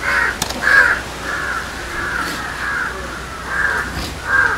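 Crows cawing: a run of about seven short, harsh calls.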